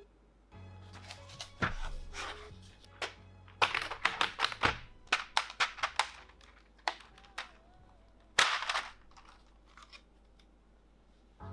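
Background music under a string of sharp clicks, knocks and rustles from objects being handled, densest around the middle, with one loud knock near the end.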